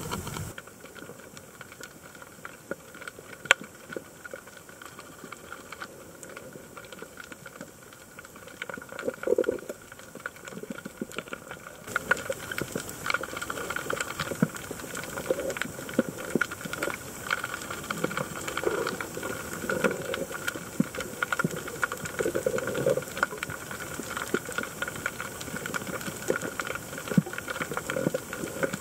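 Underwater ambience heard through the camera: a steady hiss filled with a dense crackle of short clicks, with bubbling blobs of sound here and there, getting louder about twelve seconds in.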